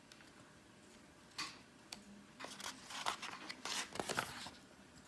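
Faint paper rustling and crinkling, a book page being turned by hand: a run of short scrapes and crackles starting about a second and a half in and lasting about three seconds.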